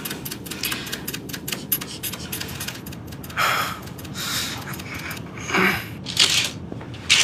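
A fast run of sharp clicks and rattles for about three seconds, then five heavy, gasping breaths about a second apart from an injured man lying on the floor, over a steady low cabin hum.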